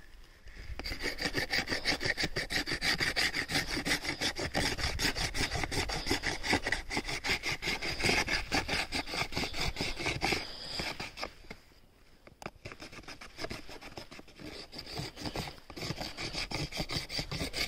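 Steel knife blade scraping the inner bark off a desert barberry stick, held at a right angle and worked in rapid back-and-forth strokes that shave the bark into powder. The scraping stops briefly about eleven seconds in, then goes on more softly.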